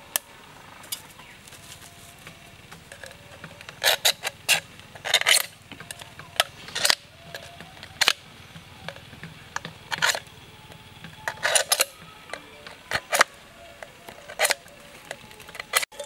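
A knife blade scraping against an aluminium drink can: about a dozen sharp, irregular metallic scrapes, some coming in quick pairs and clusters.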